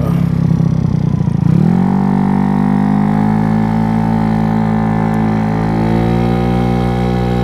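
GY6 scooter engine with an 88cc big bore kit revving up sharply about a second and a half in as the throttle opens, then running at a steady high pitch under the CVT, with a small further rise near the end. The high revs are the sign that the Polini variator's rollers are too light for this engine.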